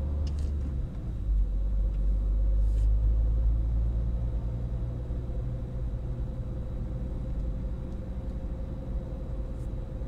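Car engine and tyre noise heard from inside the cabin while driving: a steady low rumble that gets louder about a second in.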